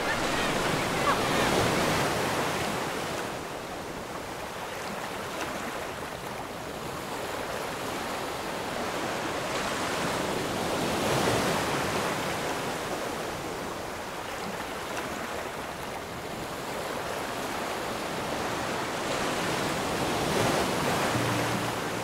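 Sea surf: waves breaking and washing in, the rush swelling and easing in slow surges about every nine to ten seconds. Music begins right at the end.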